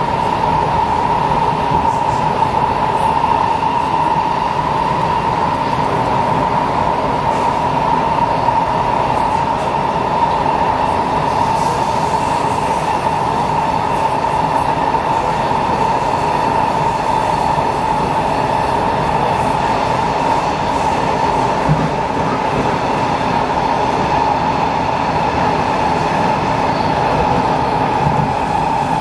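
Steady running noise inside a Kawasaki C751B metro train car in motion, with a constant high-pitched whine over it.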